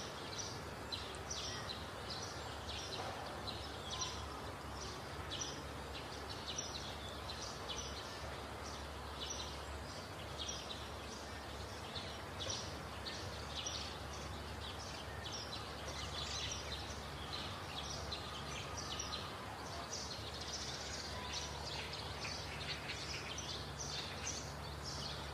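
Outdoor ambience: short high chirps repeating a few times a second, over a low steady hum.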